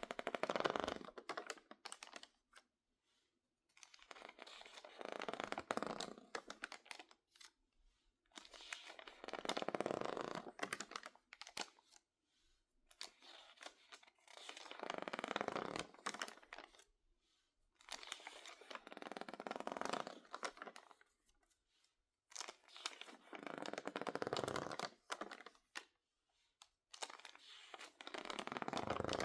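Water-damaged magazine pages, dried stiff and wrinkled, crinkling and crackling as they are handled. There are about seven separate bursts of a couple of seconds each, with short pauses between them.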